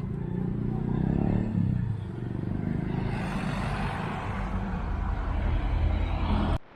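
Motor vehicles passing on a street: an engine's low running at first, then a rising rush of engine and tyre noise that builds and cuts off suddenly near the end.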